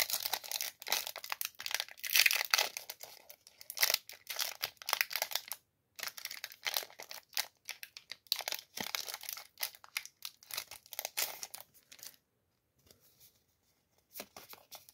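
Foil booster pack of Yu-Gi-Oh trading cards being torn open and crinkled by hand as the cards are pulled out: a crackly run of tearing and wrapper rustling, with a short pause near the middle. It stops about twelve seconds in, leaving only faint light handling sounds.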